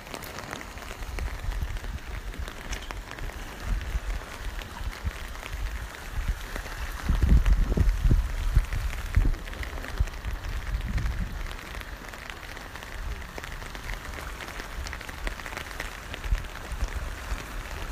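Rain pattering steadily on an umbrella, many small drop ticks over a steady hiss. A run of low rumbles comes through from about seven to eleven seconds in.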